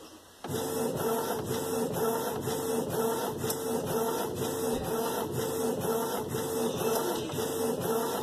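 Inkjet printer printing a heat transfer sheet: the print head carriage shuttles back and forth about three times a second with a pulsing motor whine, after a brief pause right at the start.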